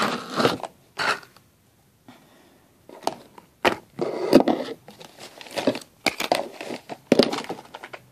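Slime being punched and squeezed by hand close to the microphone: a run of irregular squishing bursts with sharp clicks, with a short lull about two seconds in.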